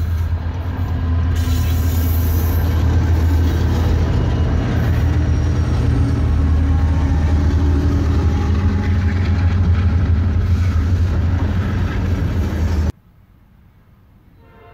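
Norfolk Southern diesel freight locomotives rumbling loudly past at close range, followed by the freight cars rolling by on the rails. Near the end the sound cuts off abruptly to a much quieter, faint background.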